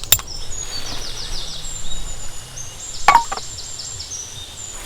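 A sharp knock right at the start and another about three seconds in, with high, rapid chirping calls in between.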